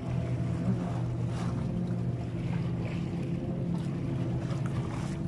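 Steady low drone of an engine running at constant speed, with wind and sea noise and a few faint light clicks.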